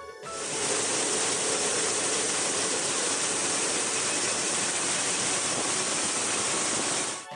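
Combine harvester running at work, a dense steady mechanical noise of engine and threshing machinery that starts abruptly just after the music stops and cuts off sharply near the end.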